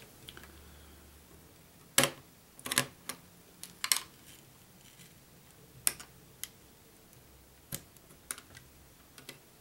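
Scattered sharp clicks and light metal-and-plastic knocks, about a dozen over several seconds, the loudest about two seconds in, as an Intel i3 processor is set into the motherboard's LGA1155 socket and the socket's retention plate and lever are closed down on it.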